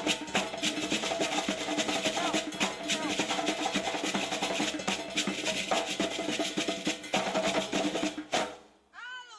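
Fast, dense West African dance drumming with many quick strokes, playing for a Mandingo female dance. It stops suddenly near the end.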